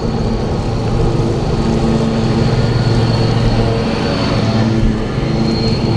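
Lawn mower engine running steadily, a constant drone with a thin high whine, over wind rumble on the microphone.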